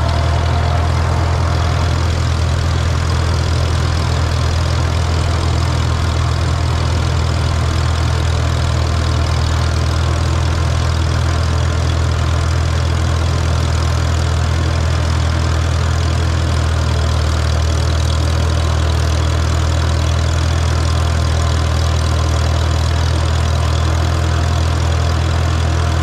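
Farmall B tractor's four-cylinder engine running steadily while pulling a hay tedder, a loud, even drone with no change in speed.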